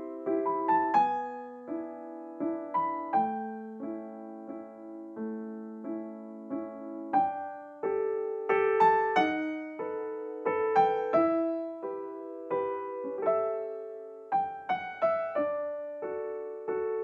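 Background piano music: a gentle melody of struck notes and chords, each note fading away after it is played.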